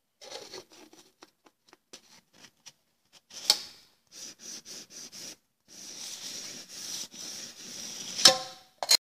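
Thin aluminium drink cans rubbing and scraping as one is slid inside the other, a cut-down can tried as a piston in a can cylinder, with light ticks between. A sharp knock comes about three and a half seconds in, and a louder tinny clank with a brief ring comes a little past eight seconds, followed by a short rattle at the very end.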